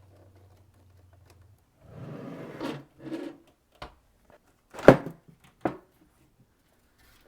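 Cables being pulled and handled inside a PC case: a rubbing scrape about two seconds in, then a click and a sharp knock, the loudest sound, around five seconds in, with a lighter knock just after.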